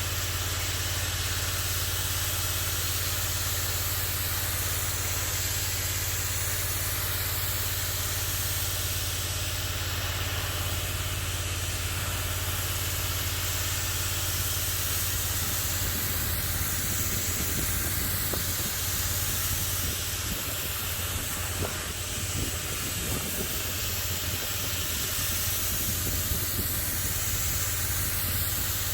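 Pressure washer running with a steady low hum under the continuous hiss of its high-pressure water jet. From about halfway through, the low end turns rougher and less even.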